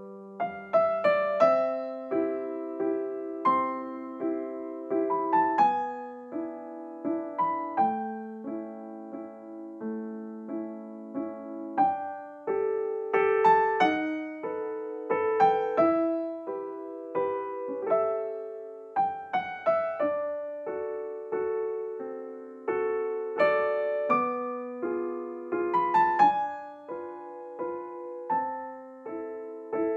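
Background piano music: notes struck one after another over held chords, each ringing and fading.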